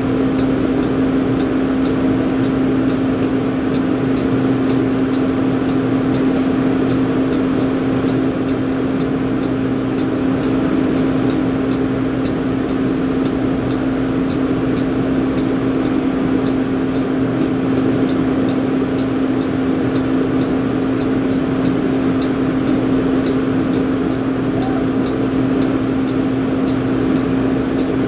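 Steady drone of drilling rig machinery on the rig floor: an unbroken hum with one strong low tone, and a faint fast ticking over it.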